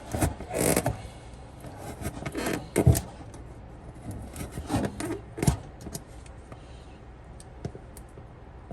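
A knife scraping and cutting at the edges of an opening in a wall panel. It comes in a few short groups of scraping strokes with knocks, the loudest about three seconds in, and goes quieter after about six seconds.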